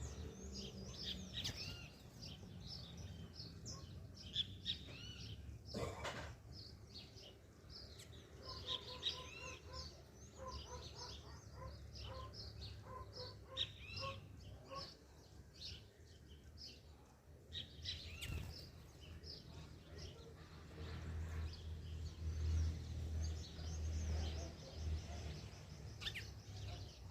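Many small birds chirping, with short, high calls overlapping throughout. A lower, evenly repeated call runs through the middle. There is a single knock about six seconds in and a low rumble near the end.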